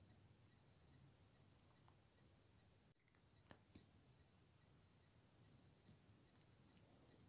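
Near silence: room tone with a faint, steady high-pitched whine and a few faint clicks.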